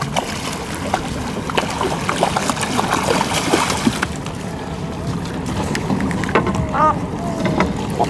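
Water splashing and knocks on a wooden boat as a big fish is netted and landed aboard, with many short knocks in the first half.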